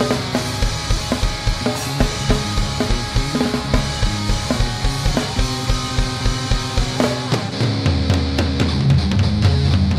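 Background rock music with a steady drum beat, changing about seven seconds in to a heavier, guitar-driven section.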